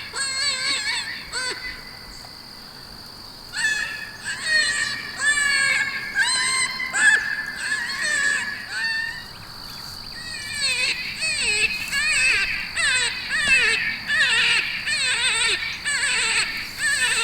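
Coyotes yipping and howling, many wavering, rising and falling calls overlapping, with a short lull near the start and a denser chorus in the second half. A steady high insect drone runs underneath.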